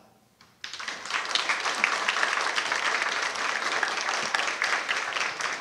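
An audience applauding, a short pause then steady clapping that begins about half a second in.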